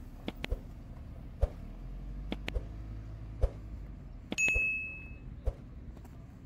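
Footsteps on a path, about one step a second, over a low rumble. About two-thirds of the way through, a single steady high whistle lasts just under a second.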